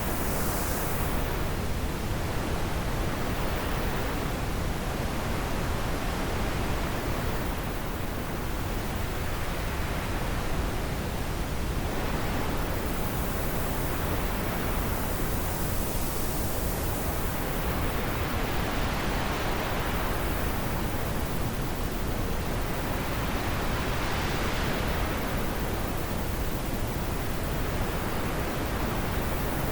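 Wind blowing steadily, its hiss swelling and easing in slow gusts every few seconds.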